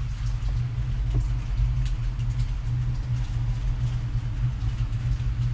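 Steady rain falling on an awning, heard as a constant low rumble with an even hiss, with a few light clicks scattered through it.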